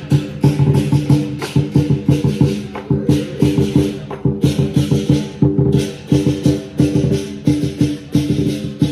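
Chinese lion dance percussion: drum, cymbals and gong playing a fast, steady beat, with cymbal clashes ringing over the drum strokes.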